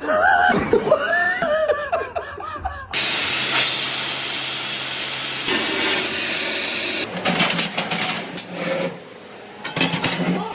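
A voice calling out, then about three seconds in a loud steady rushing hiss starts suddenly and holds for several seconds, followed by scattered clicks and knocks near the end.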